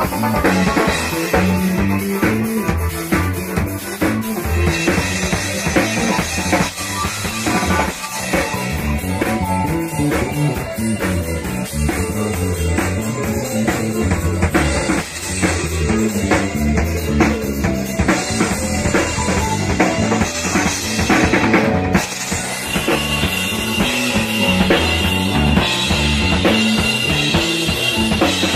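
Live band playing an instrumental passage with no vocals: a drum kit with bass drum and snare keeps a steady beat under bass guitar and electronic keyboard.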